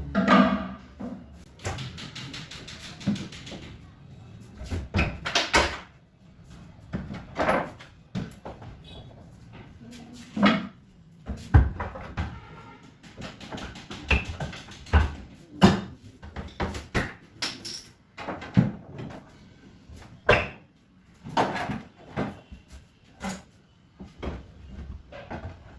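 Irregular knocks and clatters of wooden boards and panels being handled and set in place during almirah carpentry work, some sharp, some duller thuds, at uneven intervals.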